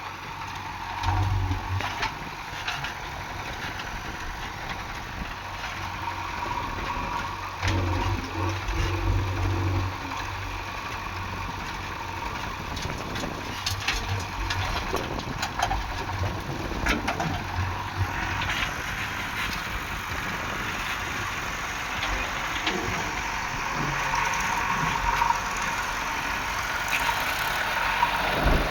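Diesel engine of a JCB 3DX backhoe loader running while it works, surging louder now and then, with scattered knocks and clatter.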